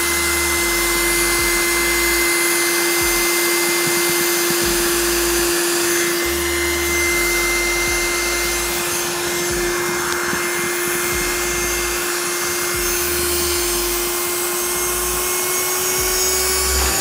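Small, wimpy-sounding electric air pump running steadily as it inflates the softbox of an Aparo Radi-09 Air inflatable LED light. Its hum creeps slightly higher in pitch as the softbox fills.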